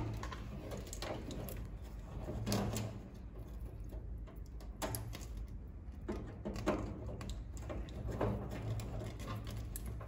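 Irregular light clicks and scrapes of a screwdriver working the screw terminals of a fire alarm panel's terminal block, loosening the data-out loop cable.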